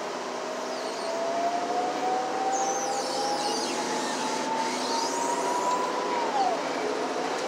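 City bus accelerating, heard from inside the cabin: a drivetrain whine climbs steadily in pitch over the engine and road noise, drops sharply about six seconds in at a gear change, then starts climbing again.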